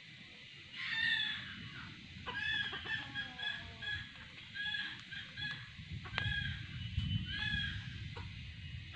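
Red junglefowl calling: a short crow-like call about a second in, a run of quick, short clucking notes from about two to four seconds and again near five, and another short call near the end. Two sharp clicks sound between six and seven seconds.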